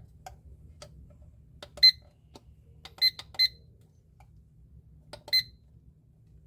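IKEA PLUGGET alarm clock beeping as its buttons are pressed: four short high beeps at irregular spacing, two of them in quick succession, each just after a faint click.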